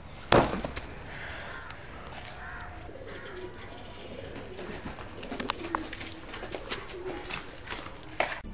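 A scuffle on rough ground: a loud thump about a third of a second in, then scattered knocks and scrapes, with low wavering cooing calls in the background and another thump near the end.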